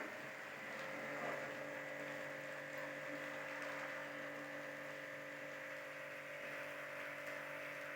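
Water-jet pressure washer running: a steady electric-motor hum under an even hiss of spraying water.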